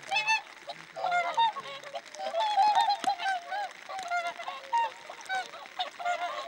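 A flock of whooper swans calling, many short honking calls overlapping without pause. A few sharp clicks and rustles come from the camera's autofocus and its plastic rain cover.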